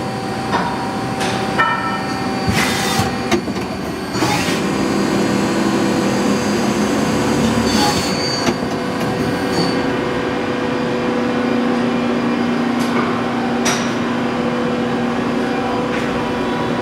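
Mazak QuickTurn 12C CNC lathe and its gantry loader running: a steady machine hum with several short hissing bursts and clicks in the first half. A stronger steady hum comes in about ten seconds in.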